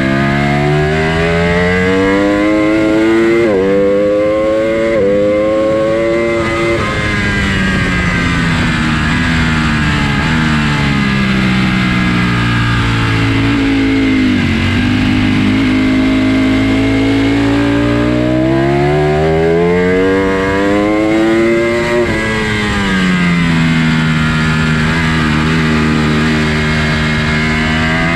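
Ducati sportbike engine at full race pace, heard from onboard: the revs climb with two quick gear changes a few seconds in, fall away through a long slowdown, then climb again to another shift about three quarters through and hold steady near the end. A rush of wind and noise sits under the engine.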